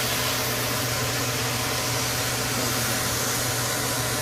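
Steady mechanical noise: an even hiss with a constant low hum underneath, unchanging throughout.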